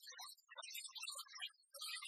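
Quiet background music with almost no bass.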